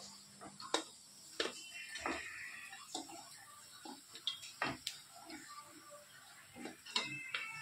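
Steel perforated skimmer tapping and scraping against a kadai of frying oil as fried chicken kebabs are lifted out: a scatter of irregular sharp metal clicks, some with a brief high ring.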